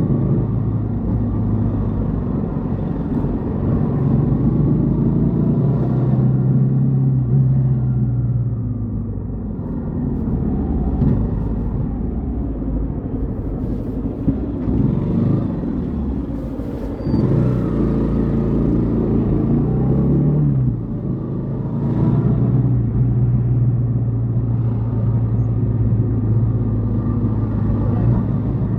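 Yamaha XTZ 150 Crosser S single-cylinder four-stroke engine running under way, its pitch falling and rising several times as the throttle is opened and closed through the gears.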